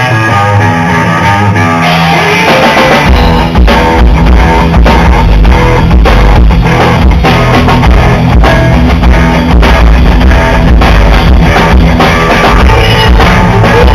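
Live rock band playing: electric guitar at first, with drums and bass coming in about three seconds in and a steady beat after that.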